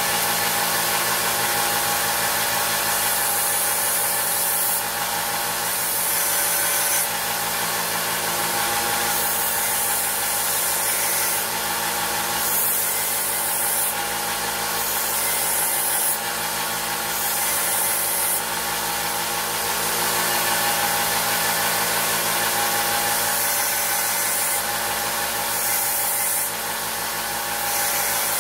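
Electric power tool running steadily while rust is ground off the steel of an old pocket knife, the high scraping hiss coming and going every second or two as the metal is pressed to the abrasive and lifted.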